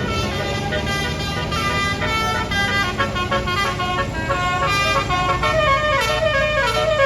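Bus 'telolet' horn, a Basuri multi-trumpet electric horn, playing a tune of quickly changing notes that ends in a falling run, over the low sound of the bus engine running.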